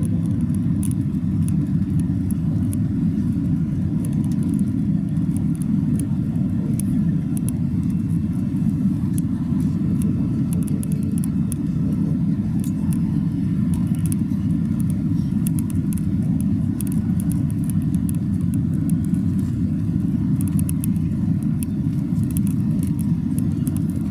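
Steady low rumble of an Airbus A320's passenger cabin on approach: airflow over the fuselage and the drone of its IAE V2500 engines.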